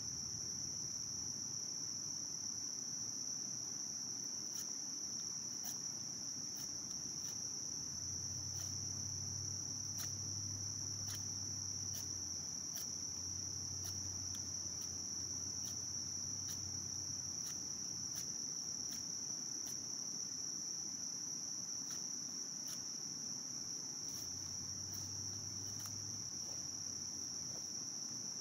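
A steady, high-pitched chorus of insects, the loudest sound throughout. Over it, short faint scraping clicks, roughly one a second, as a Spyderco Sage 5 folding knife shaves curls off a wooden stick to make a feather stick.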